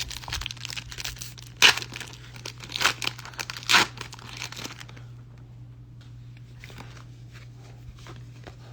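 Plastic wrapper of a Pokémon trading-card booster pack crinkling and tearing as it is ripped open and handled. The crackle is densest in the first five seconds, with two sharp louder rips, then it tails off to light crinkling.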